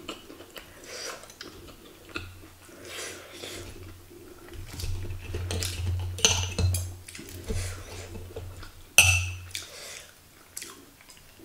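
Knife and fork scraping and clinking on a ceramic plate while martabak is cut, with mouth-close chewing. One sharp, loud clink comes about nine seconds in.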